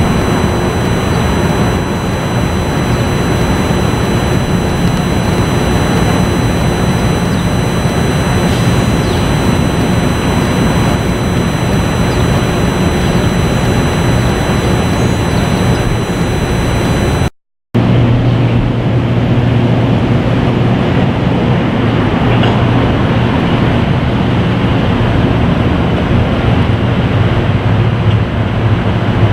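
Steady street traffic noise from cars on a busy city road. It breaks off briefly just past halfway, and after that a steady low engine hum runs under the traffic.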